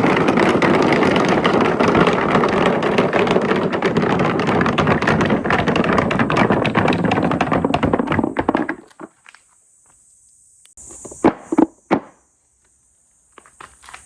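Many marbles rolling and rattling down a handmade marble run track in a dense, continuous clatter that dies away about nine seconds in. A few separate sharp clacks follow, with crickets chirring faintly near the end.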